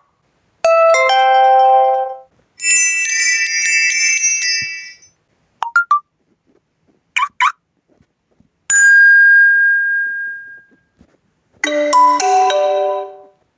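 Six short Honor 7A EMUI notification and UI tones played one after another with brief silences between them. There are bell-like chimes of several notes, two sets of quick blips, and a single ding that fades over about two seconds.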